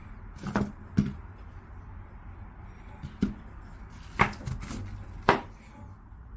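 Table tennis rackets, a mini racket and a full-size blade, being handled, turned over and set down on a cloth: about six scattered light wooden knocks and clicks, the loudest near the end.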